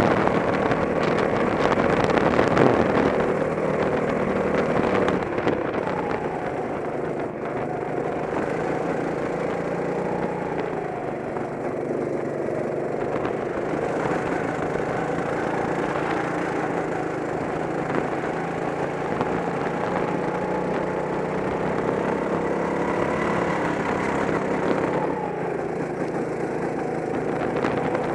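Go-kart engine running under racing throttle, its pitch slowly rising and falling as the kart speeds up and slows through the corners, with a sharper drop about 25 seconds in.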